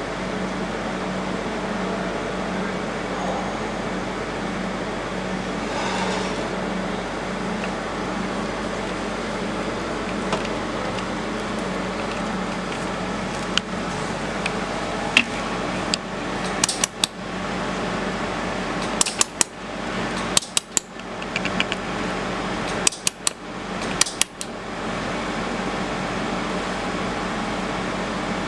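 Steady fan hum with a low drone, typical of a fiber laser welding machine's cooling fan running. From about halfway, a scatter of sharp clicks and short metallic clatters for about ten seconds.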